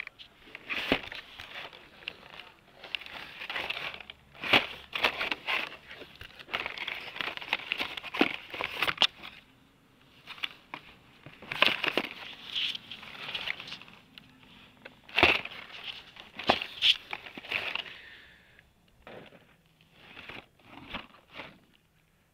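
Hot Wheels blister-pack cards, with their plastic bubbles and card backs, crinkling and clacking against each other in irregular bursts as they are flipped through by hand in a cardboard box. The rustling softens near the end.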